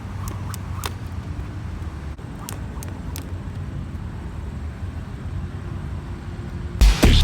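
A steady low rumble with a few sharp clicks scattered through it, then loud electronic music with a heavy beat cuts in near the end.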